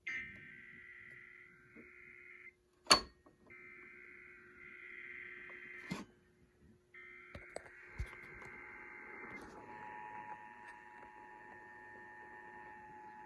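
Emergency Alert System Required Monthly Test tones on a radio broadcast: three bursts of warbling digital SAME header data, each about two seconds long, then from about nine and a half seconds in the steady two-tone EAS attention signal. A sharp click between the first and second data bursts is the loudest moment, with fainter clicks after the second and third.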